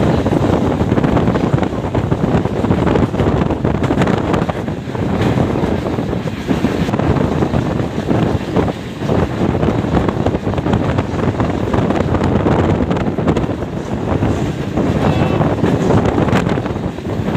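Passenger train running along the line: a steady rush of wind buffeting the microphone over the low rumble of the moving coach.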